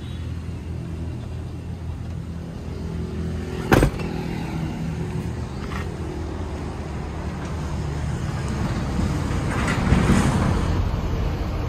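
Diesel engine of a Hyundai HD120 truck idling steadily, with a single sharp slam about four seconds in, likely the cab door shutting. A louder rush of noise swells over the idle around ten seconds in.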